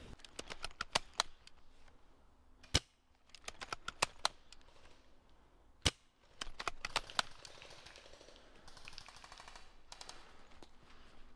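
Faint airsoft gunfire: sharp single cracks scattered irregularly, some in quick clusters, and a short rapid rattle of shots near the end.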